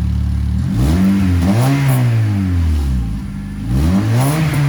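2010 Honda Civic engine revved twice from idle, each rev rising and falling in pitch, through an exhaust with washers spaced into the flange: a deliberate exhaust leak.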